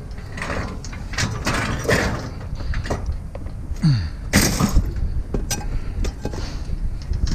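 Scrap metal being handled and tossed, clanking and banging in a run of separate knocks, with a short falling squeal about four seconds in, over a steady low rumble.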